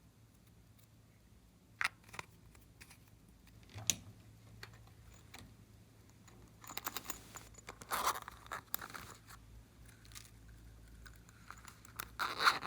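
Slime being handled and mixed by hand: scattered sticky clicks and crackles, a denser run of crackling partway through, and a loud cluster of crackles near the end.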